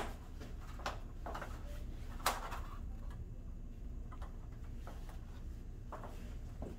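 Quiet room tone with a low steady hum, broken by a few light clicks and taps of handling, the sharpest about two seconds in.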